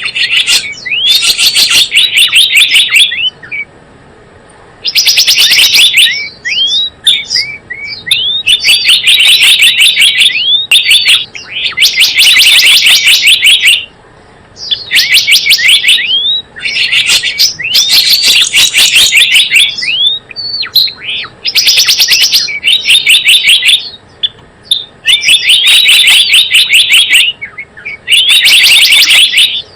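Recorded lure call of the gelatik bloong bird: loud bursts of rapid chirping, each lasting one to two seconds and coming every two to three seconds, with short rising whistled notes in between.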